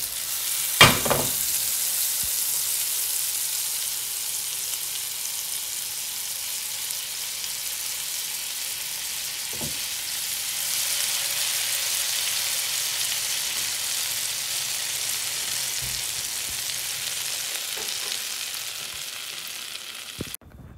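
Chicken pieces deep-frying in hot oil in a stainless steel pot: a steady sizzle, with a sharp metallic clink about a second in and a fainter one near the middle as the slotted spoon knocks the pot. The sizzle cuts off just before the end.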